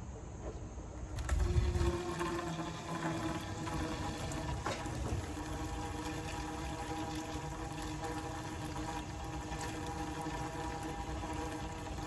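Stale ten-year-old gasoline pouring out of the opened drain hole of a Honda Civic fuel tank into a container, starting suddenly about a second in and then running steadily.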